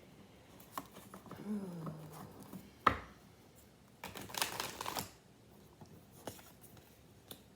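Tarot cards being handled on a table: scattered light clicks, one sharp tap about three seconds in, and a brief rustle of cards sliding about a second later. A short low hum is heard early on.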